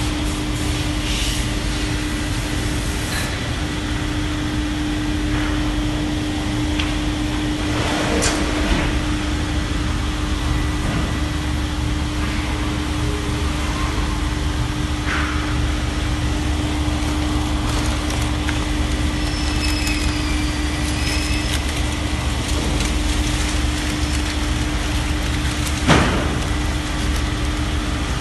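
Vacuum membrane press machine running, its motor and vacuum pump giving a steady hum with a constant tone, with a few sharp knocks, the loudest near the end.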